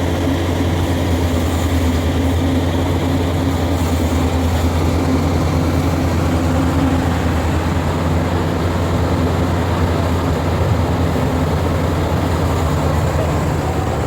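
Maxxi Bimo 102 rice combine harvester running steadily under load, a constant low engine hum with a machinery rattle over it.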